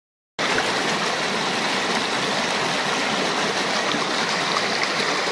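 Shallow river water rushing and splashing over boulders in a rocky streambed: a steady, loud rush that starts suddenly from silence about half a second in.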